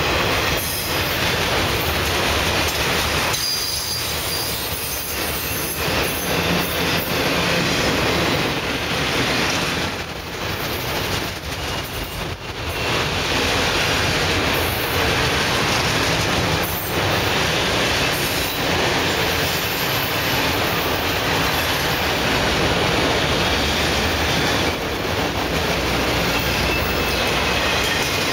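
Loaded autorack freight cars rolling past close by: a steady rumble and clatter of steel wheels on the rails, with a thin wheel squeal at times. The noise dips briefly about ten seconds in.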